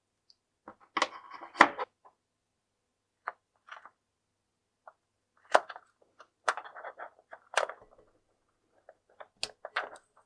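Handling noises of a rubber balloon and a glass bowl: rubbery rubbing and rustling with several sharp clicks and taps, then scissors clicking as they close on the balloon's neck near the end.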